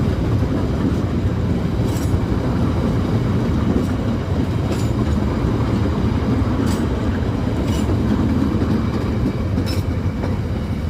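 Purwojaya passenger train rolling slowly past: a steady low rumble, with a sharp wheel click over a rail joint every second or two.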